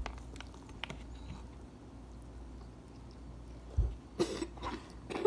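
Mouth sounds of eating crispy fried chicken: a bite at the very start, then quiet chewing. About four seconds in come a couple of short, loud throat sounds.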